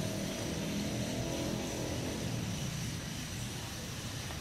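A steady low motor hum with a faint high-pitched tone above it.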